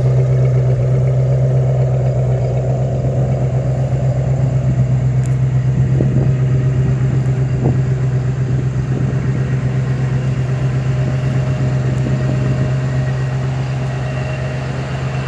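A vehicle engine idling steadily: a constant low hum with a slight even pulse, unchanged throughout.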